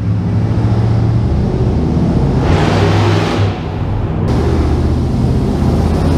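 Classic Ford F-150's 5.0-litre V8 with Cherry Bomb exhausts running as the truck drives through a brick underpass toward and past, the exhaust note getting louder and rougher for about a second around the middle.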